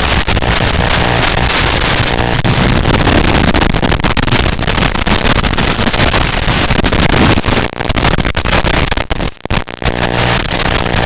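Loud, steady hiss and buzz of radio static from an analog FPV video receiver recorded in the goggles, changing with signal quality and briefly dropping out twice, about seven and a half and nine seconds in.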